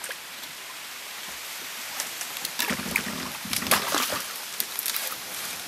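Hooked carp thrashing at the surface beside the boat. A burst of irregular, splashy water slaps starts about two seconds in, is loudest in the middle and dies away near the end, over a steady hiss.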